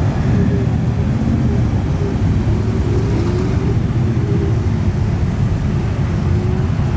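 Pickup truck engine running with a steady low rumble.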